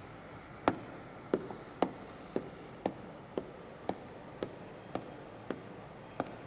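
Footsteps of a person walking along a corridor: about eleven crisp taps on a hard floor, roughly two steps a second, starting under a second in.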